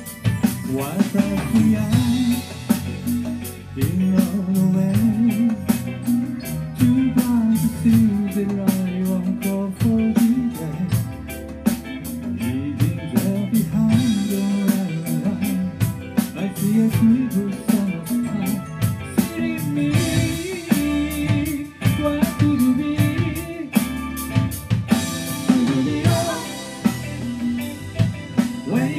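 Live rock band playing a song on drum kit, electric bass and electric guitar, with the drums struck steadily throughout.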